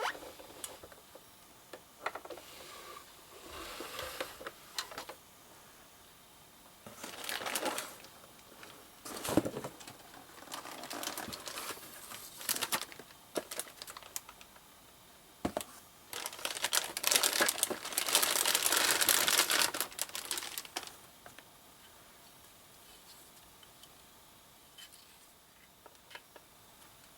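Crinkling and rustling of paper or plastic being handled, with scattered clicks and knocks. The longest, loudest stretch of crinkling comes about two-thirds of the way through, and then it goes quiet apart from a few faint clicks.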